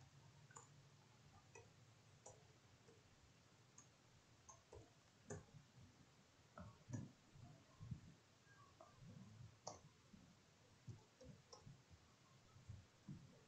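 Faint, irregular clicks of computer keyboard keys as a command is typed, over near silence.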